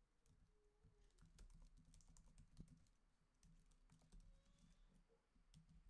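Faint typing on a computer keyboard: quick, irregular key clicks in short runs with a brief pause.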